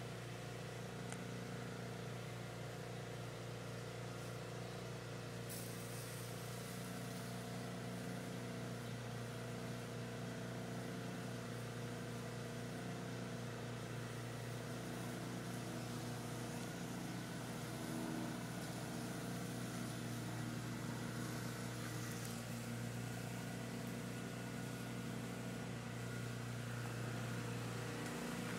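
A motor running steadily: a low hum that holds one pitch, slightly louder from about eighteen seconds in.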